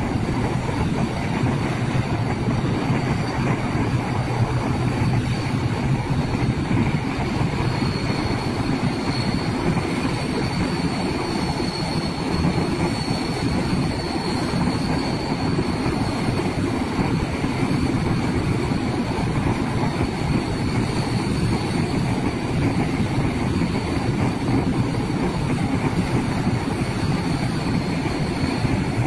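AG600 amphibious aircraft's four WJ-6 turboprop engines and propellers running as it taxis: a steady, dense roar with a faint high whine above it.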